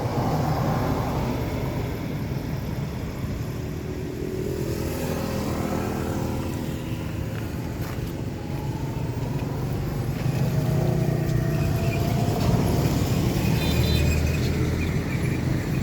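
Motor vehicle engines running and passing, with a steady low rumble and engine tones that rise briefly about eight and again about eleven seconds in.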